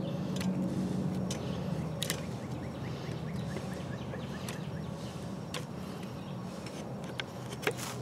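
Knife blade picking and scraping at a square notch cut into a cane pole, giving scattered sharp clicks and scrapes, over a steady low hum.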